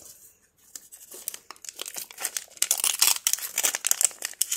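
A toy blind-bag wrapper being torn open and crinkled by hand, in quick irregular crackles that start about a second in.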